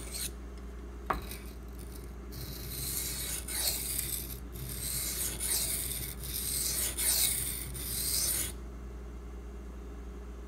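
A steel knife blade (154CM, Benchmade Mini Griptilian) stroked repeatedly across a soaked 220-grit water stone: gritty scraping in a series of strokes that stops about two seconds before the end. A light click comes about a second in.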